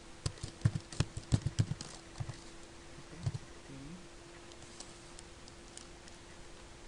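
Computer keyboard typing: a quick run of about ten keystrokes in the first two seconds as a line of code is entered, then a brief low vocal sound a little past three seconds in. A faint steady hum runs underneath.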